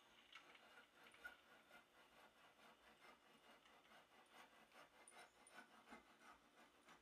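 Very faint scratchy rasping of a handsaw cutting into a wooden plane body held in a vise, in short quick strokes.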